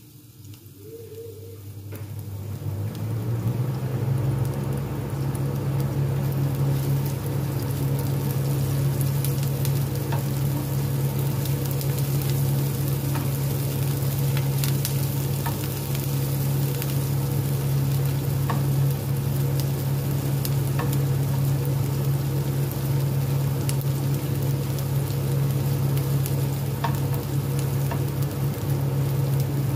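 Chopped onion sizzling in olive oil in a nonstick frying pan, stirred with a silicone spatula that clicks now and then against the pan, over a steady low hum. The sound builds over the first few seconds, then holds steady.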